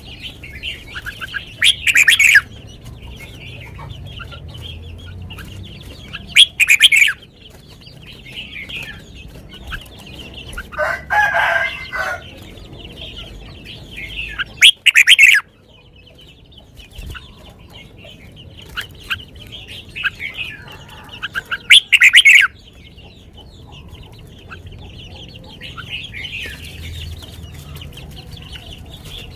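Red-whiskered bulbul singing: short, loud whistled phrases about every six to eight seconds over a steady run of softer chirping. Chickens clucking in the background, with a lower call near the middle.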